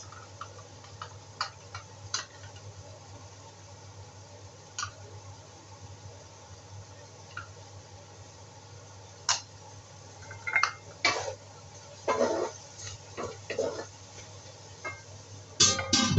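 Light ticks and clinks, then a plastic spatula stirring and scraping shrimp and vegetables in a stainless-steel wok, in short bursts. Near the end the domed steel lid clatters onto the wok, the loudest sound. A steady low hum runs underneath.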